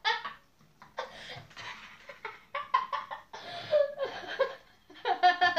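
A boy laughing in repeated short bursts.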